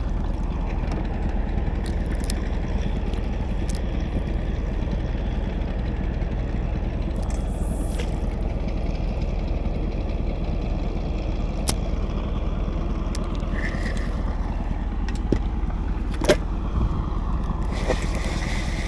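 Small river boat's engine running steadily at low speed, an even low rumble, with a few sharp clicks as the fishing rod and reel are handled.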